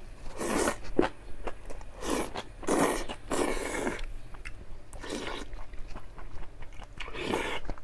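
Close-miked eating sounds of jjajang ramyun noodles with kimchi: about six noisy slurps and chews, with sharp mouth clicks between them.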